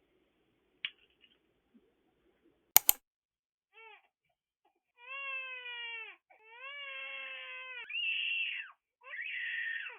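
Four-month-old baby crying: short whimpers about four seconds in build into longer wails, each falling in pitch, that grow louder toward the end. This is fussy crying that the parents suspect comes from a wonder week, a developmental leap. A sharp double click comes a second or so before the crying starts.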